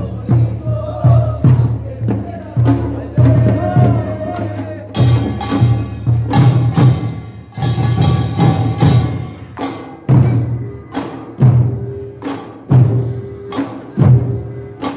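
Korean farmers' band (nongak) percussion music: drums beating a steady rhythm, with a wavering melody over it in the first few seconds and bright metal gongs clashing in from about five seconds to ten seconds in.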